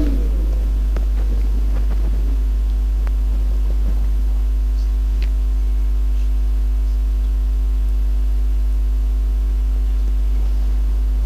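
Steady low electrical mains hum from the sound or recording system, with a few faint clicks.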